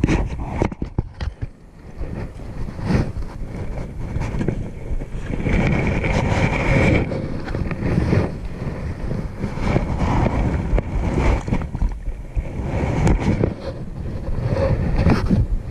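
Wind buffeting the microphone outdoors, a gusting, uneven rumble that dips briefly about a second and a half in and swells again around six seconds in.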